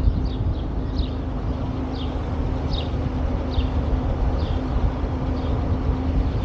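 Steady low rumble of wind and road noise from a moving vehicle, with a faint steady hum and short high chirps falling in pitch about once a second.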